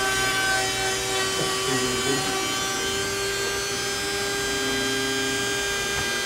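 Shapeoko 2 CNC carver routing a pattern into a wooden board. The router spindle runs with a steady whine, and short low tones shift in pitch as the machine moves the bit through the cut.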